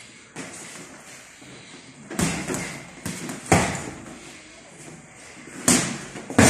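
Boxing gloves landing in sparring: a few irregular sharp thuds of punches on gloves and headgear, the loudest about three and a half seconds in, with a short echo off the gym walls.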